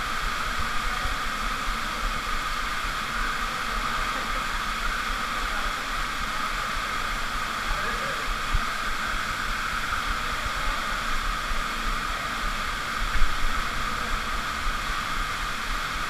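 Underground waterfall pouring steadily into a rock pool in a cave, a constant rush of water, with a brief louder bump near the end.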